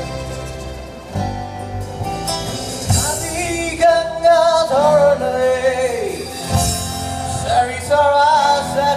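Live band playing a song, with a man's sung vocal coming in about three seconds in and carrying the melody over the band.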